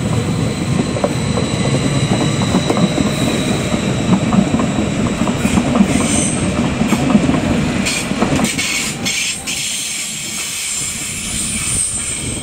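A Stadler FLIRT electric multiple unit rolling away along the track, heard as a steady rumble of wheels on rail with regular clicking over the rail joints and a thin, steady high whine. The rumble drops away about eight and a half seconds in as the train recedes.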